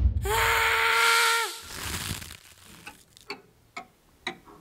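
A loud, steady, held note with a hiss over it, sounding for about a second and a half as the anger bursts out. It is followed, from about halfway through, by soft, even, clock-like ticks about twice a second.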